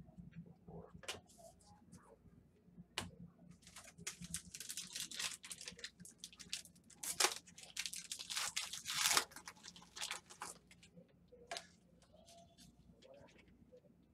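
A trading-card pack wrapper being torn open and crinkled: a few sharp clicks, then a run of crackling, rustling tears through the middle, settling into light taps of cards being handled.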